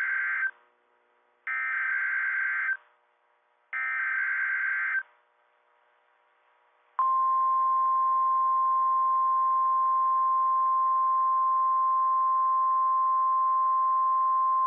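NOAA Weather Radio alert signal: three short buzzing bursts of SAME digital header data, the first already under way, each a little over a second with a pause between. About seven seconds in, the steady single-pitch 1050 Hz warning alarm tone starts and holds, announcing an incoming weather alert.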